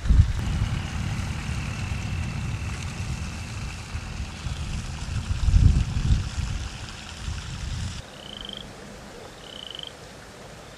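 Wind rumbling and gusting on the microphone outdoors, with a faint high steady tone held for a few seconds. It cuts off abruptly, and near the end two short rising high-pitched calls sound a second or so apart.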